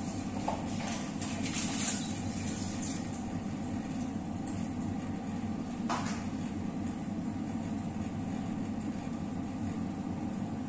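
A steady low hum from a running fan or appliance, with light clinks of a stainless steel cooking pot being handled, the sharpest about six seconds in.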